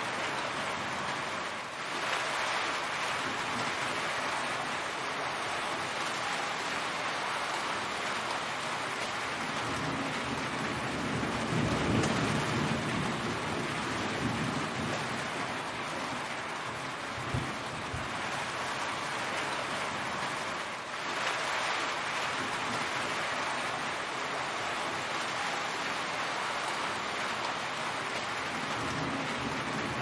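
Heavy rain falling steadily, a dense even hiss, with low rumbles swelling up about a third of the way in and again near the end.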